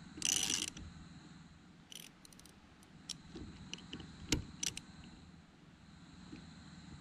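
A short loud rush of noise near the start, then scattered light metallic clicks and a sharper knock a little past four seconds in, as a hand tool is worked against a rear wiper arm seized with corrosion on its pivot shaft.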